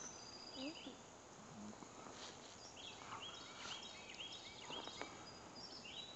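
Several songbirds chirping and singing in short, repeated high notes, faint over a steady background hiss.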